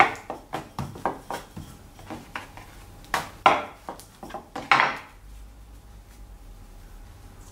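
Wooden rolling pin rolling out a bun wrapper on a wooden tabletop: a quick series of sharp clacks and knocks as the pin is pushed back and forth. It stops about five seconds in.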